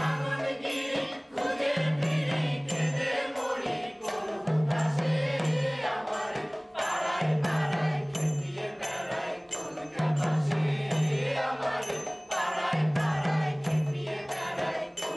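A group of voices chanting together in a steady rhythm over a hand-played barrel drum, with sharp percussion strikes throughout and a low figure that repeats about every second and a half.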